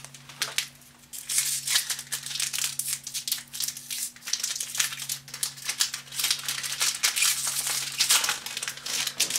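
A Magic: The Gathering booster pack's foil wrapper crinkling as it is handled and torn open, a dense run of irregular crackles.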